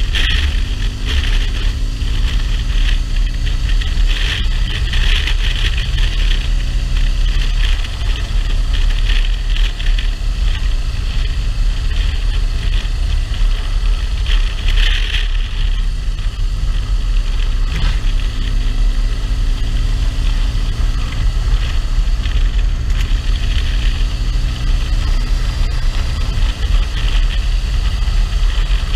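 Motorcycle engine running steadily at road speed, mixed with heavy wind rush over the microphone. The engine note climbs a little about two-thirds of the way in.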